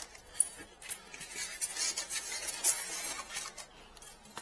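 Rustling and scraping of packing material with a few sharp light knocks, as protective padding is pressed in around a printer inside its cardboard box.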